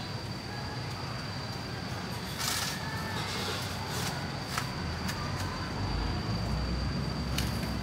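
Long-handled shovel digging into packed soil and rubble, with a few irregular scrapes and sharp knocks of the blade, over a steady high-pitched whine and a low rumble in the last couple of seconds.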